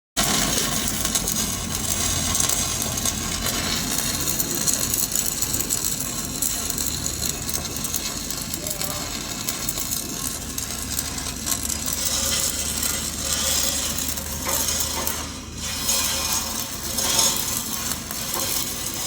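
Electric arc welding: a continuous crackle with a steady low hum underneath.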